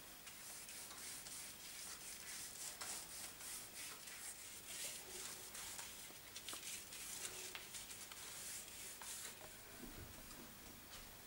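Quick back-and-forth scrubbing strokes of a small hand tool rubbing along a carriage wheel's tyre hoop, a faint scratchy rasp. Near the end it gives way to a few light clicks and knocks as the rubber-tyring machine is worked.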